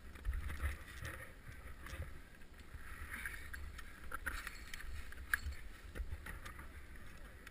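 Ice axe and boots crunching into snow as a climber moves up a snowy ridge, with scattered sharp clicks of metal gear and a low wind rumble on a helmet-mounted camera's microphone.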